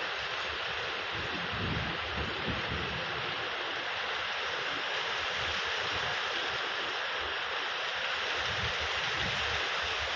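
Steady rainfall, an even hiss with uneven low rumbling underneath.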